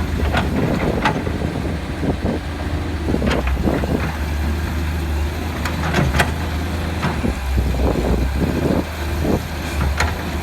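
A machine running with a steady low drone, overlaid by frequent short knocks and clatter at irregular intervals.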